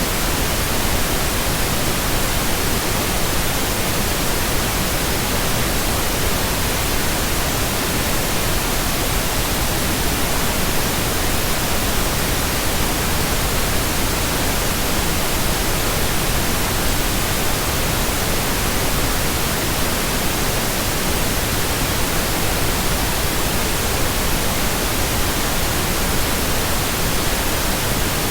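Steady computer-generated pink noise: an even hiss that does not change.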